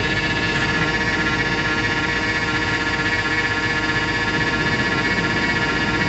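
Engine idling with a steady high whine over it. The owner puts the whine down to a leaking power steering hose rather than the belt or a pulley.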